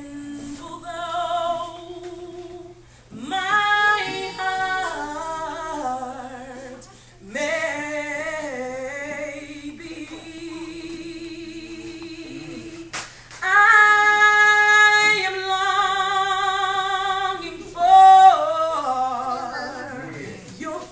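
A woman singing a gospel song solo and unaccompanied, holding long notes with vibrato. Her phrases break off briefly about three, seven and thirteen seconds in, and she sings loudest after the last break.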